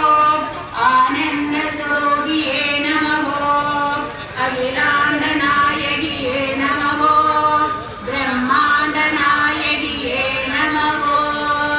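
Women's voices singing a devotional chant in short repeated phrases of about three to four seconds each.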